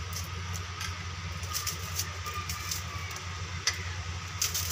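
Crisp crackles and small clicks of pan-roasted bread slices being broken by hand and dropped into a pan of boiling milk, a few at a time, over a steady low hum and hiss.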